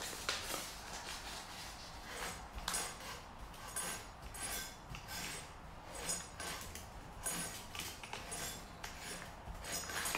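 Fine 2000-grade wet-and-dry paper scraping on an angle grinder's commutator as the armature is turned by hand to clean it: a run of short scratchy strokes with light metallic clinks.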